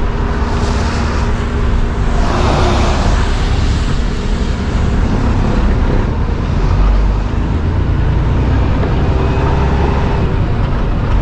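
Peterbilt 579 semi truck running down the road, heard from inside the cab: a steady low engine drone with tyre and road noise, and a short swell of hissing noise about two seconds in.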